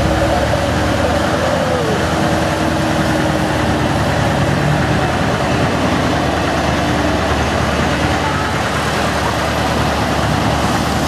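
Small diesel 0-4-0 shunting locomotive, No. 2, running steadily under power as it moves off with its train and passes close by.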